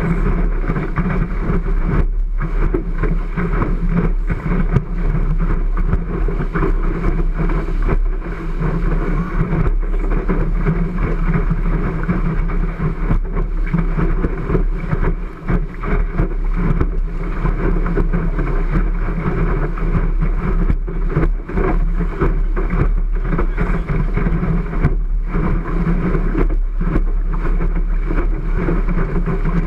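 Loud, steady rush of wind on the camera and water streaming past the hull of a Cherub skiff sailing fast downwind, with a constant low rumble.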